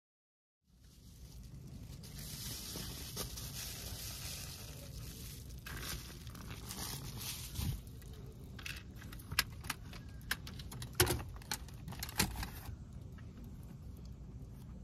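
Rustling and crinkling of things being handled, with a run of sharp clicks and taps through the second half, the loudest a little past the middle.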